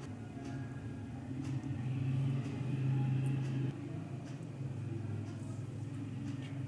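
Soft background music of sustained low notes, swelling for a while in the middle and then easing back.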